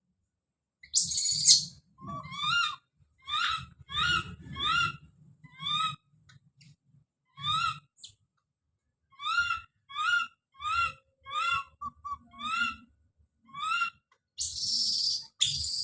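Baby monkey calling out: a string of short, rising, whistle-like cries, one or two a second, broken by a harsh shrill scream about a second in and longer screams near the end.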